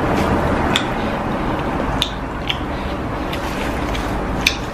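A person eating by hand: chewing and mouth sounds, with a handful of short sharp clicks over a steady hiss.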